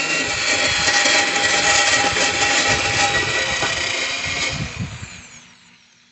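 Power-tool-driven wire brush scrubbing the cut edge of a steel lawnmower deck at slow speed to knock off sharp burrs. The scratchy running sound dies away over the last second and a half as the tool winds down and stops.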